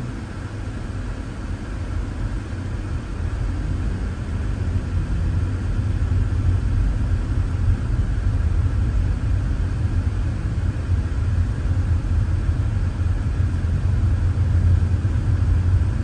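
Car cabin noise while driving: a steady low rumble of engine and tyres on the road that grows louder over the first few seconds, then holds.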